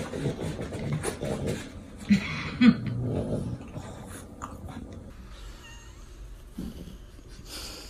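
A cat yowling and growling, loudest about two to three seconds in, then quieter.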